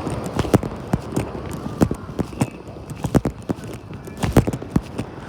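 Footsteps of a person walking: a string of sharp, irregular taps, about two or three a second, over a low steady background.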